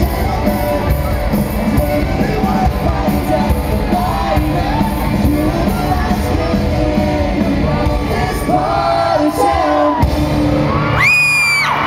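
Live pop-punk band playing loudly with a sung lead vocal, heard from the audience with the echo of a large hall. The low end drops out briefly about ten seconds in, and a single high note is held near the end.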